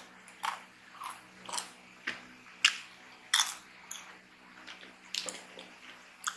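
Crunchy Granny Goose Tortillos corn chips being bitten and chewed: sharp crunches about twice a second, growing fewer and softer in the second half.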